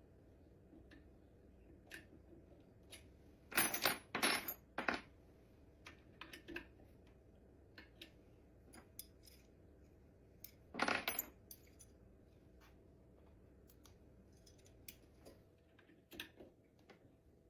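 Metal Allen wrenches clinking and rattling as they are handled at a garbage disposal: a quick cluster of clinks about four seconds in, another about eleven seconds in, and faint scattered ticks between.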